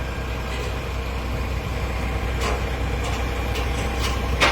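Engine idling steadily with a low hum, with a few short clicks about halfway through and near the end.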